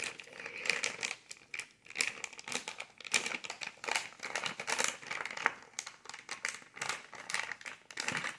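Plastic MRE flameless ration heater bag crinkling and rustling as hands work inside its open top, in dense, irregular crackles.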